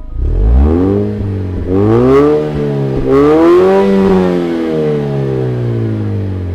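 Car engine revved through an aftermarket valved sport exhaust. It blips up a few times, holds a longer rev in the middle, then drops back toward idle.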